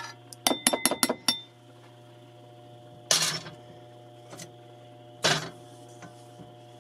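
A metal spoon clinking and scraping against a nonstick frying pan and ceramic bowls as cauliflower rice is served out: a quick run of clinks with a short ring about half a second in, then two louder clatters about three and five seconds in. A steady low hum runs underneath.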